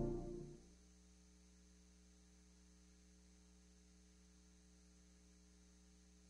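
Near silence: the tail of background music dies away within the first second, leaving only a faint, steady electrical hum.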